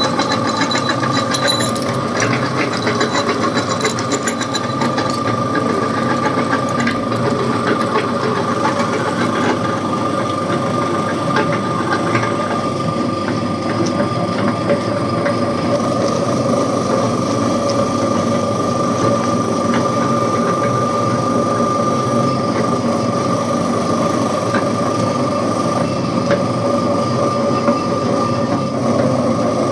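Electric meat grinder running steadily, its motor giving a constant whine, as it grinds burfi.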